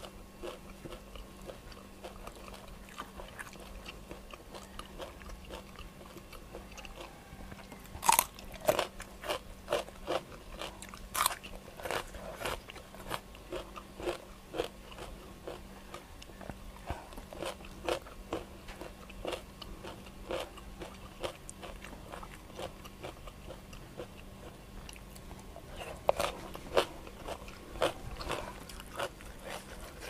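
Close-miked eating sounds: steady chewing punctuated by loud crunchy bites, the loudest about 8 and 11 seconds in and a few more near the end, from a mouthful of grilled pork belly salad with sticky rice and crisp raw vegetables.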